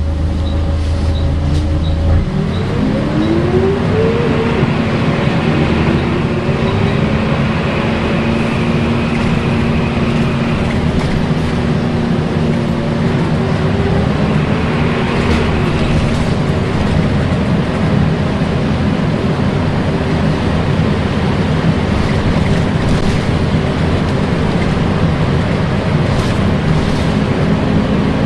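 Volvo B10BLE single-deck bus heard from on board: its engine-driven cooling fan makes the typical vacuum-cleaner-like 'hoover' whine, rising in pitch about two seconds in and then holding steady along with the engine running. Light regular ticks come in the first few seconds.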